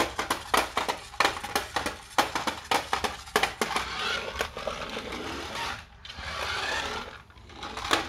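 Toy remote-control car clicking and rattling on a wooden floor: a quick run of irregular plastic clicks, then a few seconds of whirring from its small motor.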